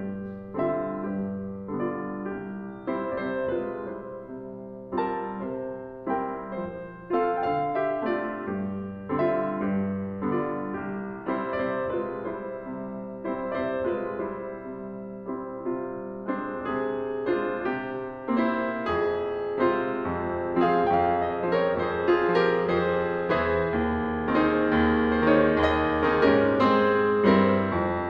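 Background piano music: struck notes and chords ringing and fading one after another, growing fuller with deeper bass notes about two-thirds of the way through.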